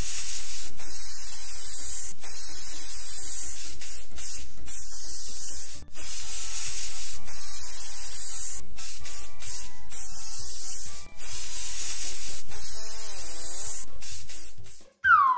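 Aerosol spray-paint can hissing in three long blasts, with short breaks about six and eleven seconds in, as a cartoon sound effect. Faint musical tones sound underneath, and a quick falling whistle-like glide comes right at the end.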